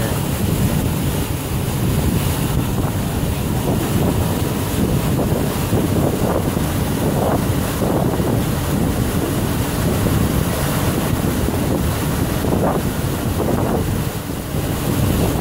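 Steady low wind rumble on the microphone of a moving pontoon boat, mixed with the boat running over the lake water.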